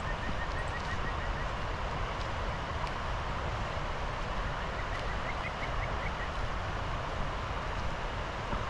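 Steady rush of a shallow, rocky river running beside the path, with a low rumble of wind on the microphone. Twice a quick run of high chirps, once just after the start and again about five seconds in, rising a little the second time.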